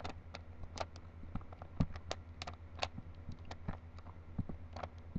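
Rubik's Cube being turned by hand: irregular plastic clicks and clacks of the faces rotating, about four a second, over a steady low hum.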